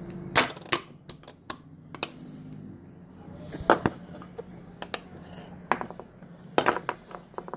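Small hard clicks and clinks of a toy teacup and plastic play-oven pieces being handled, about eight sharp knocks at irregular intervals, the loudest about half a second in and near the middle.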